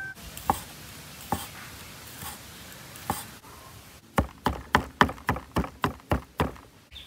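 Large kitchen knife chopping sausage into small pieces on a wooden cutting board. About four seconds in, after a few scattered taps, it becomes a quick run of about ten strokes at roughly four a second.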